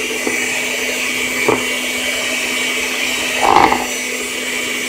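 Electric hand mixer running steadily with a single beater, beating eggs in a bowl. Two short knocks sound over the whir, the louder one about three and a half seconds in.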